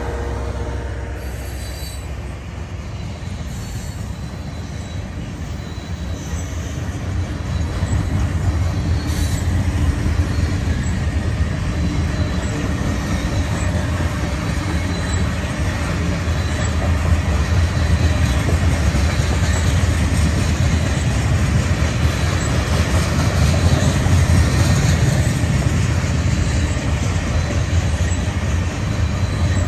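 Norfolk Southern freight train rolling past: a steady rumble of steel wheels on rail as covered hopper cars go by, growing louder a few seconds in.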